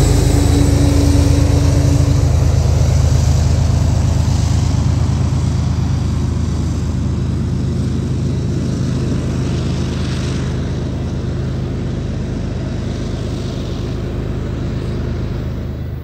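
Diesel freight locomotives running with a steady low engine drone that slowly gets quieter.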